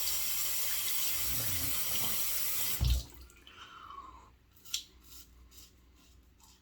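Water running steadily from a tap into a sink for about three seconds, then a knock as it stops, followed by faint small clicks.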